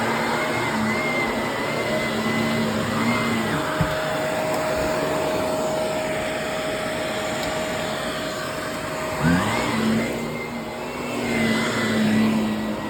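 Vacuum cleaner running steadily, its motor hum over a rushing noise. The motor's pitch changes about four seconds in and sweeps back up just after nine seconds.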